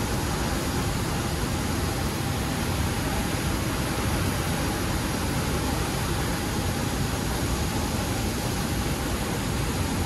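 Water of Iguazu Falls pouring down: a steady, dense rush of falling water with no breaks.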